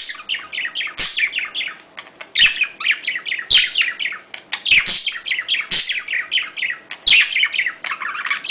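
Budgerigar warbling and chattering in quick runs of short falling chirps, phrases of about a second with brief pauses between: the excited chatter of budgies in breeding mood.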